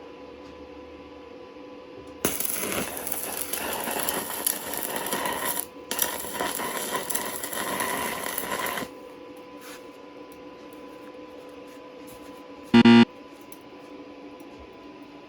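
Stick-welding arc crackling and hissing on thin square steel tube, in two runs of about three seconds each with a short break between. A short, loud tone sounds once near the end.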